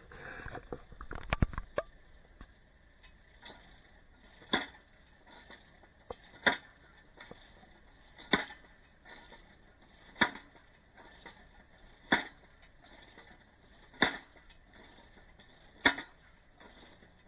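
Hydraulic post driver's drop hammer striking a wooden fence post to drive it into the ground: seven sharp, even blows about two seconds apart, beginning about four and a half seconds in, after a clatter of smaller knocks.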